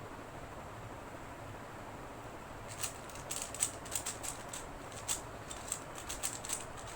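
Faint room hiss, then from about three seconds in a quick, irregular run of sharp plastic clicks: a 3x3 Rubik's cube being turned fast in a speedsolve.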